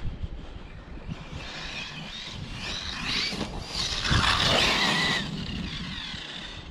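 Arrma Mojave RC truck's brushless electric motor whining, rising and falling in pitch as the truck speeds up and slows down, loudest about four seconds in.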